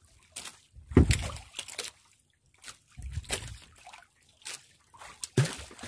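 Sea water sloshing and splashing against the hull of a small outrigger boat, in irregular short splashes, with a few dull knocks about a second in and again around three seconds.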